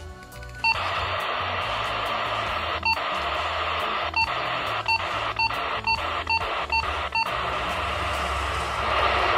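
Motorola GM3188 UHF mobile radio hissing with open-squelch static from its speaker, starting abruptly under a short key beep less than a second in. About eight more short key beeps follow as its front-panel buttons are pressed, each briefly cutting the hiss, and the static grows a little louder near the end.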